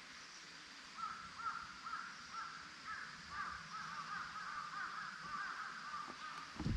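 Several crows cawing over and over, their calls overlapping, starting about a second in. A low thump comes right at the end.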